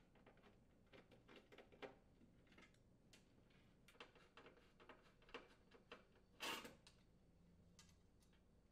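Faint, scattered clicks and light metal handling as screws are unthreaded from an electric range's surface-element support braces with a screwdriver and the braces are moved about. A brief, louder scuff comes about six and a half seconds in.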